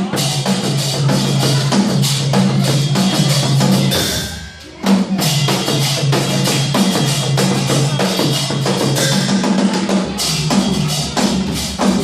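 Live band playing a fast Nepali folk piece driven by dense drumming over a steady low bass line. The music drops away for a moment about four seconds in, then comes back with a strong hit.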